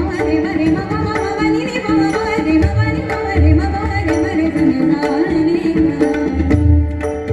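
Pakhawaj and tabla playing an abhang rhythm, with deep ringing bass strokes and crisp higher strokes, under held melodic notes.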